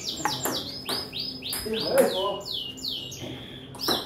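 A bird chirping in a quick series of short, high notes that each sweep downward, about three a second, with one longer, steadier note near the end.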